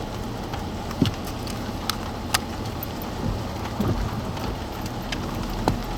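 Steady car engine and road noise heard inside the cabin, with a few sharp taps scattered through it.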